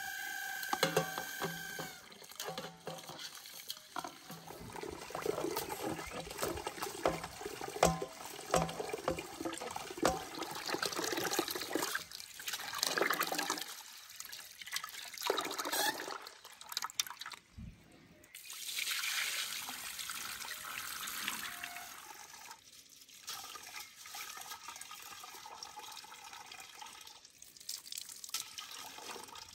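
Water splashing and sloshing in an aluminium pot as rice is washed by hand under an outdoor tap, in uneven swells with scattered sharp clicks and knocks.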